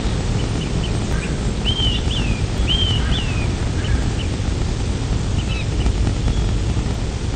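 Outdoor ambience: a steady low rumble with small birds chirping over it, a quick run of short rising-and-falling chirps about two to three seconds in.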